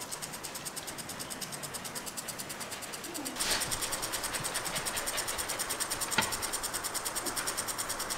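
Spinning lawn sprinkler spraying water: a steady hiss that pulses about six times a second, growing louder a little over three seconds in. A single sharp click comes about six seconds in.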